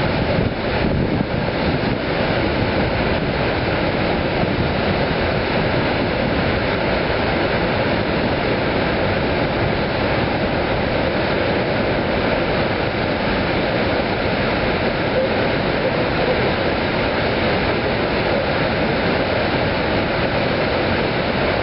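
Steady rush of a large waterfall, mixed with a freight train's cars rolling over a railroad bridge above it.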